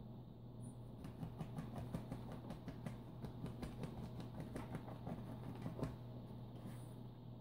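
Fingers scratching and tapping on a quilted mattress cover in quick, irregular strokes, starting about a second in and stopping about a second before the end, over a faint steady low hum.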